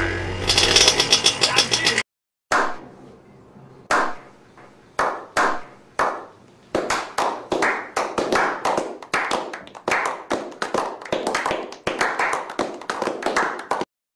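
A Yamaha RX King's two-stroke single-cylinder engine running, cut off abruptly about two seconds in. Then a small group begins a slow clap, a few single claps building into faster applause.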